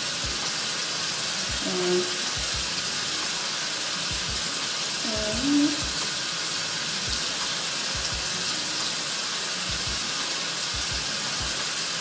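Water running steadily from a bathroom sink tap, an even hiss that holds level throughout.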